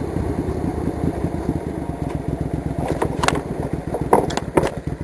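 Suzuki Intruder 800's V-twin engine running under way with a steady low beat. A few sharp clattering knocks come from about three seconds in.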